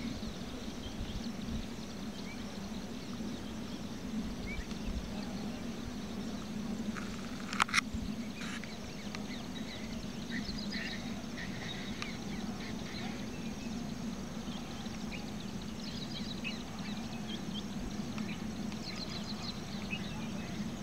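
Open farm-field ambience: a steady low hum under scattered high animal chirps and short trills, with two sharp clicks about seven and a half seconds in.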